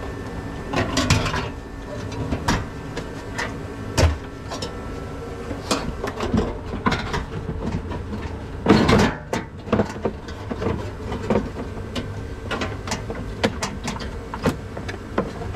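Clicks, knocks and clanks of the sheet-metal cover of a Toyota Prius hybrid battery pack being worked loose by hand, with a louder scraping rasp about nine seconds in, over a steady background hum.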